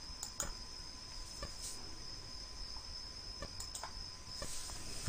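Quiet background with a faint, steady high-pitched insect trill and a few soft clicks.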